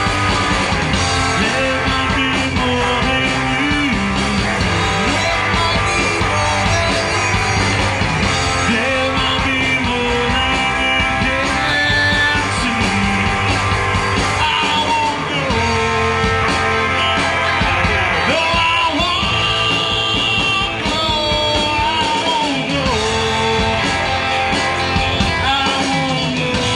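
Live rock band playing: electric guitars and a drum kit, with a male lead singer singing over them.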